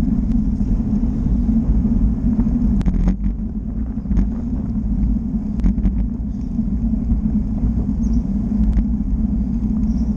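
Steady low rumble of a vehicle riding along a road, recorded by an action camera mounted on it, with a few faint ticks and clicks scattered through.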